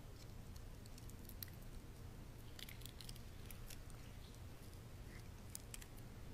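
Faint scattered small clicks and crinkles of a plastic communion cup being handled and drunk from, over a steady low hum.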